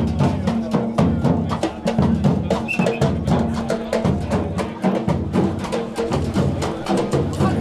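Live percussion group playing large barrel bass drums and a snare drum in a fast, steady rhythm.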